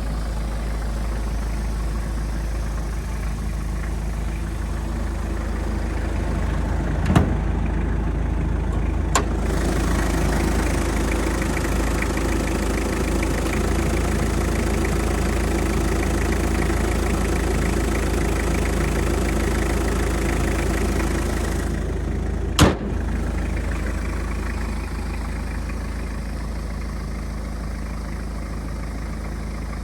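Toyota Land Cruiser Prado LJ78's 2.4-litre turbo-diesel engine idling steadily. A louder rushing noise comes in about nine seconds in and stops about twenty-two seconds in, with sharp clicks around those changes.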